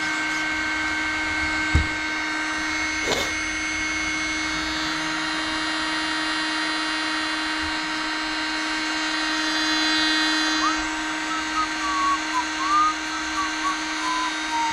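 Dynamite .28 big-block nitro engine with a Platinum tuned exhaust idling steadily while warming up, a high, even tone.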